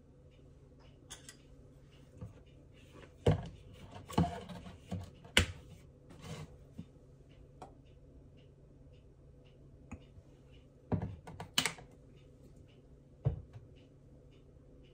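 Kitchen utensils being handled while ingredients are measured into a bowl: light clicks and knocks of a plastic measuring spoon and a bottle, and a spoon against the bowl. They come in two clusters, a few seconds in and again near the end, over a faint steady hum.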